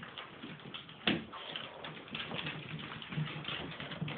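Five-week-old puppies' claws clicking and skittering on a hardwood floor, with a sharper knock about a second in and a few low puppy whines near the end.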